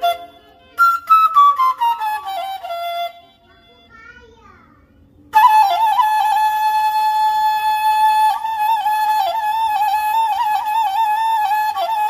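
Bamboo suling tapsel (onang-onang side-blown flute) in F being played: a quick run of notes falling in pitch, a short soft pause, then from about five seconds in a long held melody line with wavering, ornamented pitch.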